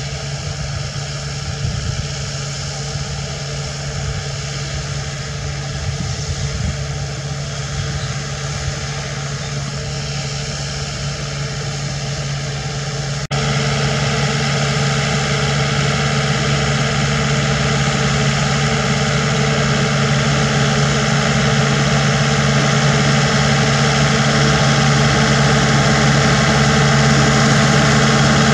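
Kubota Sunshine-series diesel tractor engine running steadily under load, its rear rotary implement turning the soil. The drone is unbroken and becomes suddenly louder about halfway through.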